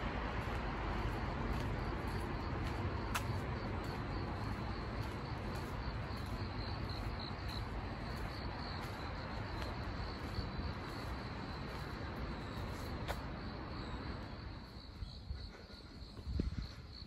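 Crickets chirping in a steady, pulsing high trill over a wash of distant traffic noise that fades about fourteen seconds in. A few footsteps near the end.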